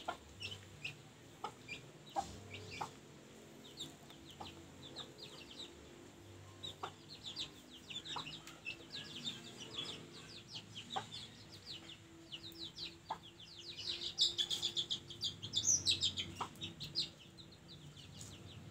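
Young free-range village chicks (ayam kampung) peeping, many short, high, falling cheeps that grow thicker and louder near the end, with a hen's low clucking underneath.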